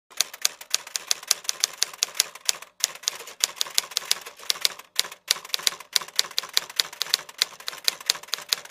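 Typewriter sound effect: keys clacking in quick succession, about five strokes a second, with two brief pauses.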